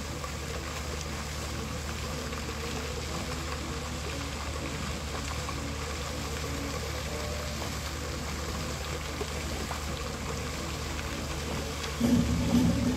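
Illuminated fountain jets spraying and splashing steadily into a pond, with faint music underneath. Near the end a louder low rumble sets in.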